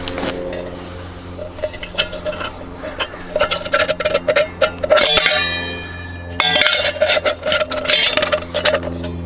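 Stainless steel camping stove parts clinking and knocking as they are handled and fitted together, with a brief metallic ringing about halfway through, over background music with a steady low drone.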